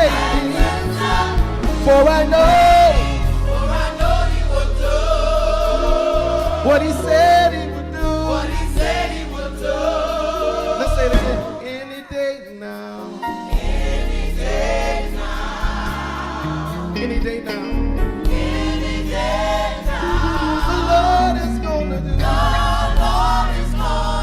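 Gospel choir singing with band accompaniment, with a bass line under the voices and a brief drop-out about halfway through.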